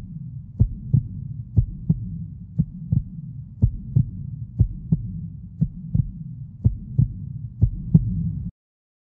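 Slow heartbeat sound effect: paired low thumps, lub-dub, about once a second over a low steady drone, cutting off abruptly near the end.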